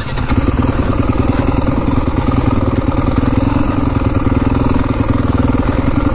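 Enduro dirt bike engine running at a steady pitch, its firing pulses fast and even, getting a little louder just after the start.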